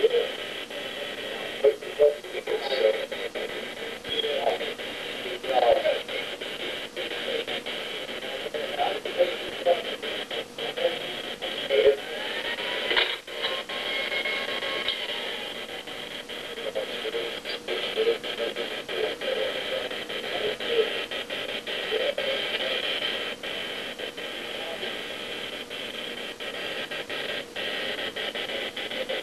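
Indistinct, muffled talking with a thin, radio-like sound over a steady hiss, broken by frequent faint clicks.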